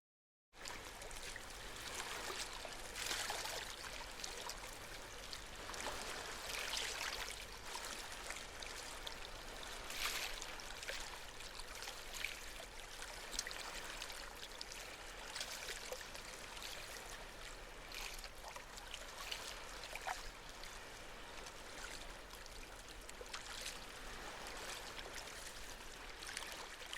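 Water running and splashing unevenly, with a low steady hum underneath.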